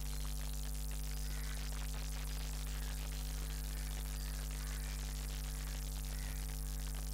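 Steady electrical hum with a hiss behind it, the background of the recording with nobody speaking.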